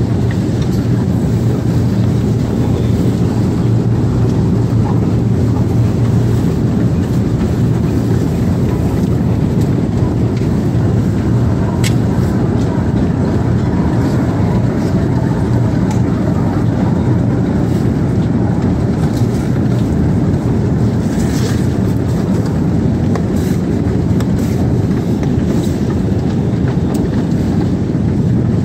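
Escalator machinery running: a steady low mechanical hum and rumble, with a few faint clicks now and then.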